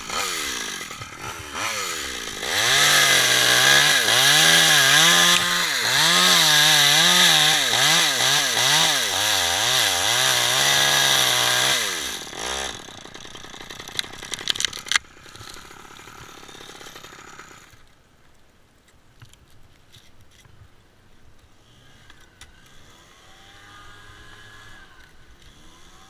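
Chainsaw cutting through a pine trunk at full throttle for about ten seconds, its pitch wavering as the chain bites, then dropping back to a low idle. A few sharp clicks follow, and the last several seconds are nearly quiet.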